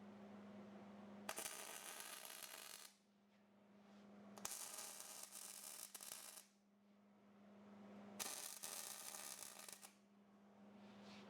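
Three bursts of hiss, each lasting about two seconds and starting and stopping abruptly, over a faint steady hum.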